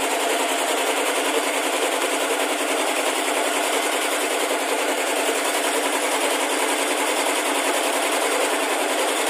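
A machine running steadily with a rapid mechanical rattle.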